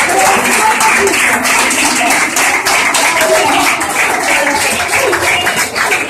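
A crowd clapping and cheering, with many shouting voices mixed into the applause.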